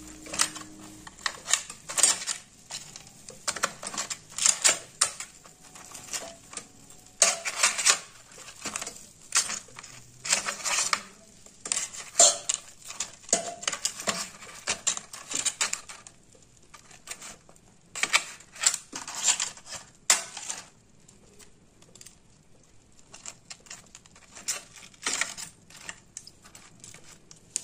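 Metal fork clinking and scraping against chicken pieces and the parchment-lined air fryer basket as the pieces are turned over, in irregular clicks that grow sparse after about twenty seconds.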